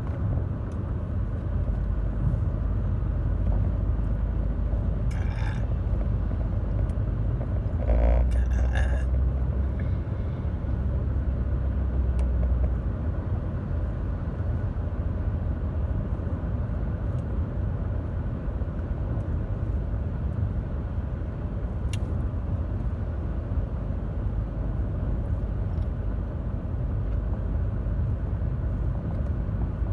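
Steady road and engine rumble heard inside a moving car. A short sound comes about five seconds in, and a louder one about eight seconds in, when the low rumble swells for a few seconds.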